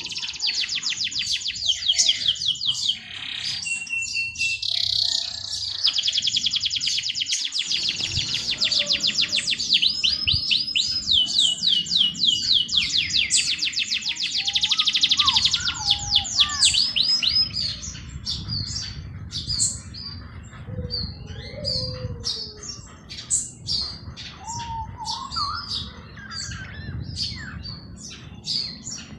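Songbirds chirping in fast, dense, high trills that thin out about two-thirds of the way through into scattered short chirps and a few lower whistled calls. A low rumble runs beneath from about eight seconds in.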